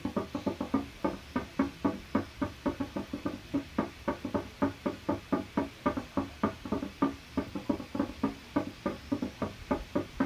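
Air conditioner making an abnormal rhythmic knocking, about four to five knocks a second in an uneven repeating pattern like a drum beat: a sign of a fault in the unit.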